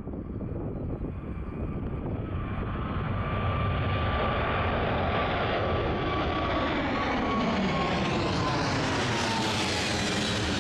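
Boeing 777 freighter's twin jet engines at takeoff power as it climbs out and passes overhead: a loud, dense jet noise that swells over the first few seconds and then stays loud. A thin whine in it drops slightly in pitch as the aircraft goes over, and the hiss grows brighter near the end.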